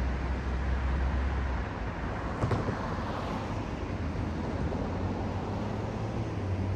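Road traffic noise: cars passing on a wide street with a steady low engine hum, and a single sharp click about two and a half seconds in.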